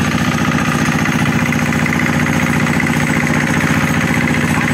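Single-cylinder diesel inboard engine of a small wooden fishing boat running steadily with a loud, rapid, even chugging.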